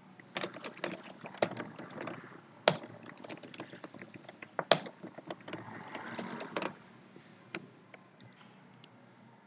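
Fast, irregular typing on a computer keyboard, a run of key clicks that thins out to a few scattered clicks for the last couple of seconds.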